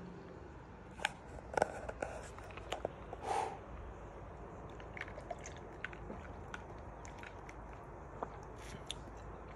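Faint drinking and handling sounds from a plastic blender cup of iced drink: scattered light clicks and taps as the cup is handled and sipped from, over a steady low background hum.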